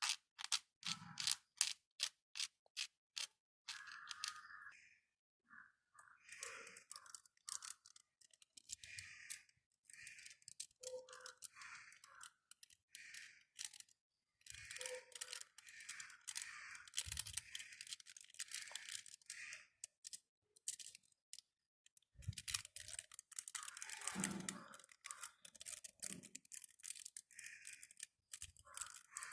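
Aluminium foil being crumpled and handled: a quick run of sharp clicks at first, then irregular crackling and rustling.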